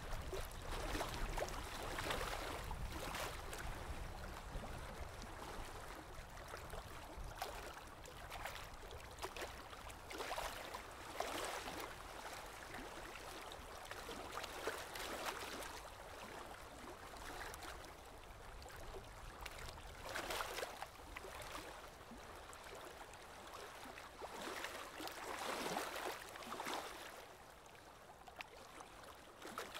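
Soft, irregular rustling of yarn being worked with a crochet hook, in swells every second or two as the yarn is pulled through stitches.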